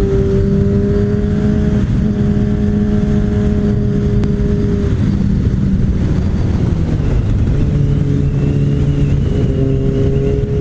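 Kawasaki ZX-6R inline-four sport bike with an M4 aftermarket exhaust running at a steady cruising pace, over a steady rush of noise. About two-thirds of the way through, the engine note drops lower and holds there.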